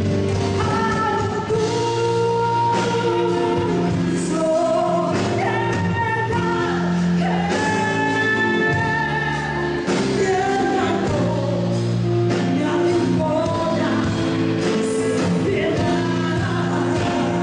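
A woman singing a song live into a microphone, with amplified band accompaniment and an electric bass underneath.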